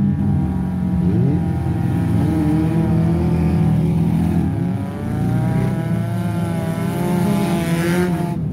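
Engines of stripped-down wreck-race cars running hard on a dirt track, revving as they race. Near the end one engine climbs steeply in pitch as it accelerates.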